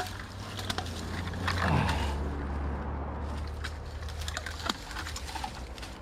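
A vehicle passing on the road, its low hum swelling to a peak about two seconds in and then fading, with scattered light clicks and rustles.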